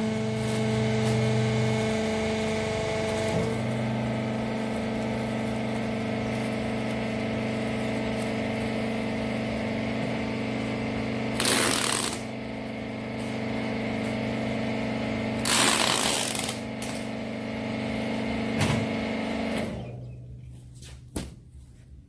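Rag baler's hydraulic power pack running with a steady hum, shutting off about twenty seconds in. Over it, packing tape is twice pulled off a tape gun in loud tearing screeches, about a second long each, near the middle.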